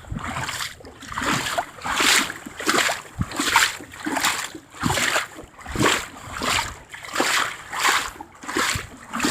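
Wading steps through floodwater, a splash with each stride in a steady rhythm of about three steps every two seconds.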